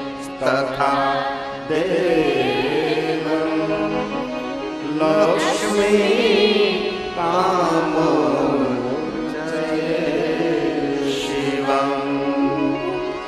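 A male voice singing a devotional Sanskrit shloka to Shiva in a slow, ornamented chant, over steady sustained instrumental accompaniment.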